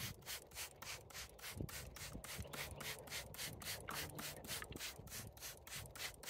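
Hand trigger spray bottle being pumped rapidly, each squirt a short hiss of spray, about six a second in an even rhythm.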